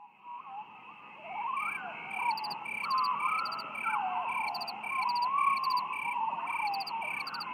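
Vizsla puppies whining and whimpering, in cries that waver up and down in pitch. About a second and a half in, a steady rhythmic chirping starts behind them, about two chirps a second.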